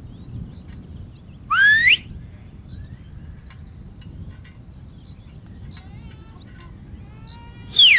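Two sharp whistle commands to a herding dog: a rising whistle about one and a half seconds in, and a quick falling whistle near the end. Faint bird chirps and a low rumble of wind lie under them.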